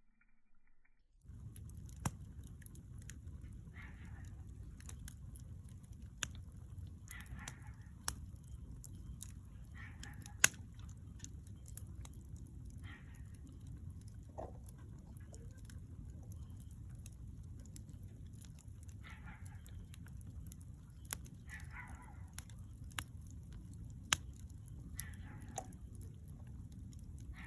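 Bonfire burning with a steady low rush and sharp crackling pops from the burning wood, starting about a second in; the loudest pop comes about ten seconds in.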